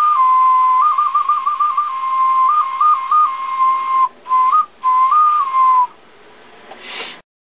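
Homemade whistle made from plastic soda bottle caps, blown by mouth. It gives one high whistle tone that warbles rapidly between two close pitches in runs, with steadier held notes between them, and breaks off twice briefly before stopping shortly before the end.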